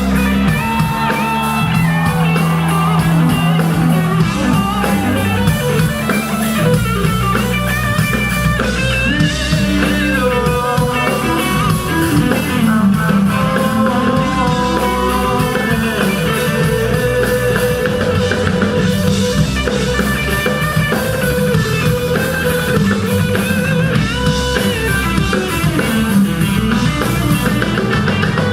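A live band plays an instrumental section of a reggae/rock song, with guitar lines over bass and a drum kit.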